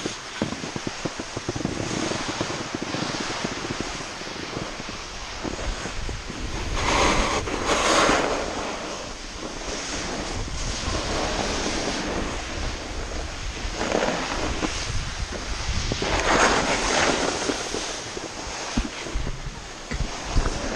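Skis sliding and scraping over snow, with wind rushing across the microphone. The hiss swells louder several times.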